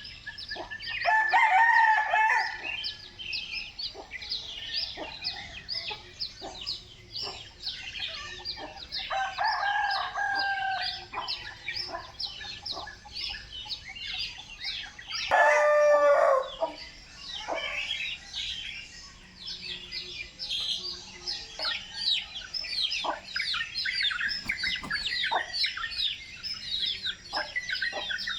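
Rooster crowing three times: about a second in, around nine seconds in, and loudest around fifteen seconds in. Under the crows runs a constant busy chatter of short high chirps.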